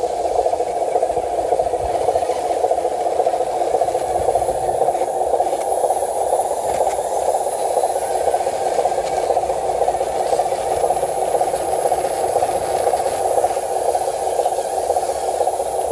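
A small motor running steadily, an even mechanical buzz that neither starts, stops nor changes pitch.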